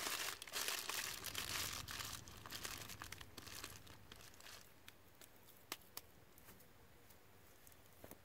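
Aluminium foil crinkling and crackling as it is pressed around a chicken, fading out after about three seconds. Then it goes quiet apart from a few soft clicks.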